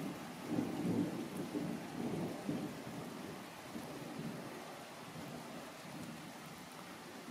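Rolling thunder rumbling, strongest in the first three seconds and then fading away, over steady rain.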